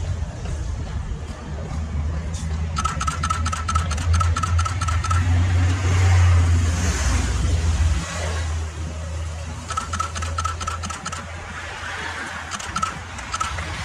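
A road vehicle's engine running steadily, loudest in the middle. Two spells of rapid ticking or rattling come in, a few seconds in and again about ten seconds in.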